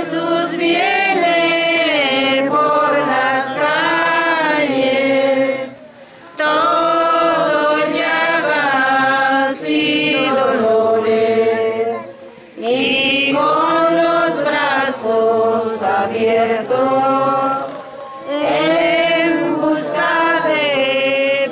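A group of voices singing a slow religious hymn together, in long held phrases of about six seconds with short breaks between them.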